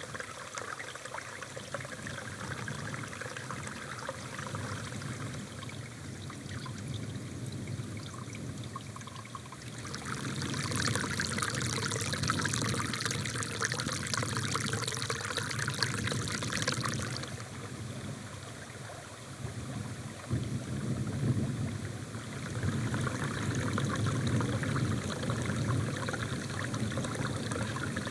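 Running water, a small stream trickling and splashing steadily. It grows louder and hissier from about a third of the way in until just past the middle.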